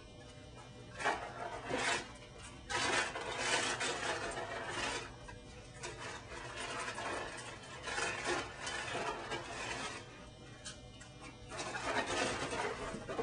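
Cardboard Honeycomb cereal box and its liner rustling as it is handled and dug into, in irregular bursts: a few short ones about a second in, a longer stretch a little later, and more near the end.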